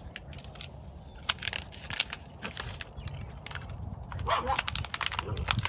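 Eight-week-old puppies playing: scattered clicks and crunches of paws and the plastic dish on gravel, then brief puppy yips from about four seconds in.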